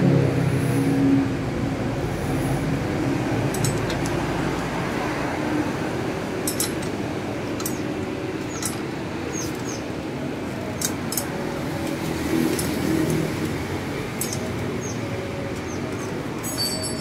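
Scattered light clicks and taps from the pedal, crank and wheel of a new BMX bicycle being handled during assembly, over a steady background noise.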